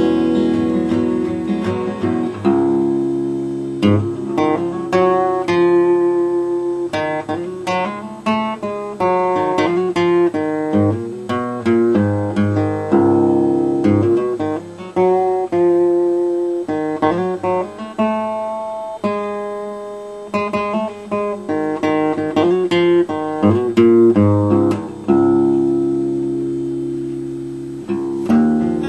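Acoustic guitar being played: plucked notes and chords in quick succession, each ringing and fading.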